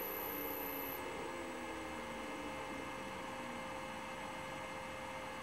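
1 HP three-phase motor on a variable frequency drive humming faintly as the drive frequency is turned down, its tones sliding slowly lower as the motor slows.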